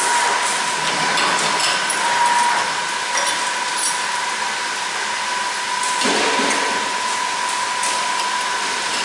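Tank-cleaning station running on a road tanker: high-pressure water rushing through the tank's rotating cleaning heads with a steady hiss and a steady high whine, plus a few light metallic clicks.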